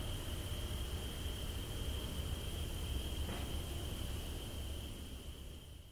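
HO-scale model passenger train running along the layout's track as it moves off, a steady low rumble with a constant high-pitched tone over it. The sound fades out near the end.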